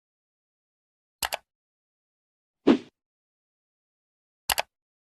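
Three short, sharp sounds with complete silence between them: a quick double click, then a duller single knock, then another quick double click.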